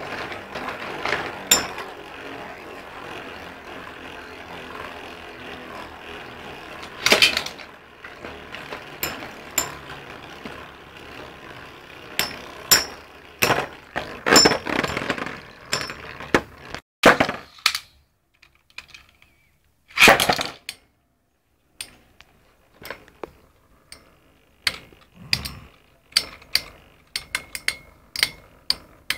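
Beyblade spinning tops whirring on a metal bowl, with sharp metallic clinks as they strike each other and the bowl. The steady whir dies away after about a dozen seconds, leaving a run of quick clicks that come in scattered clusters as the tops knock together.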